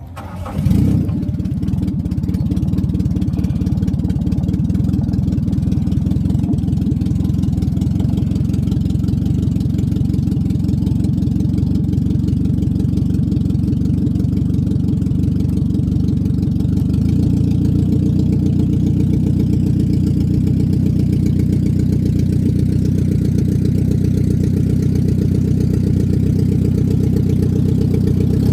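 A small river boat's engine starts up loudly about a second in, then runs steadily as the boat crosses the river. The engine note shifts slightly a little past the middle.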